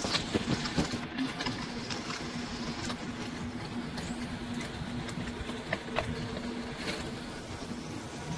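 Freshwater eel sizzling inside a closed waffle machine, with scattered crackles and pops of spitting fat over a steady low mechanical hum.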